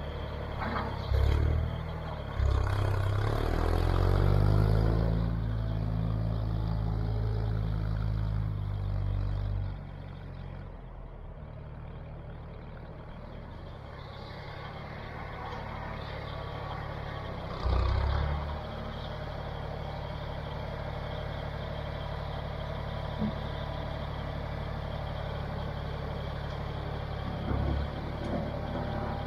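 John Deere 1020 tractor's engine running under load as it drags a grading box blade, its ripper hooks lowered, along a gravel driveway. The engine note rises in pitch in the first few seconds, then fades as the tractor pulls away, with a few short dull thumps.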